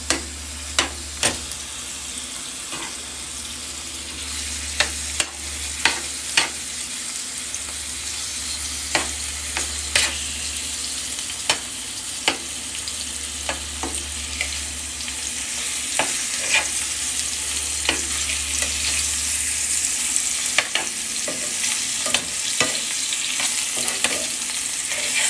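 Chicken pieces and diced onions sizzling in hot oil in a skillet, with sharp clicks of a metal fork knocking against the pan as the pieces are turned to brown lightly.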